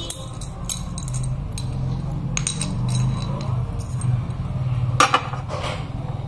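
Small glass vials and a coin clinking and knocking on a hard tabletop as they are handled and set down, with several light knocks and the loudest pair about five seconds in. A steady low hum runs underneath.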